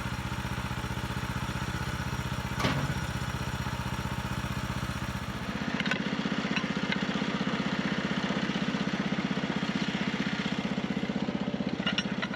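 An engine running steadily, its note shifting and getting a little louder about five and a half seconds in. A single sharp knock comes a few seconds in, with a few lighter clicks later.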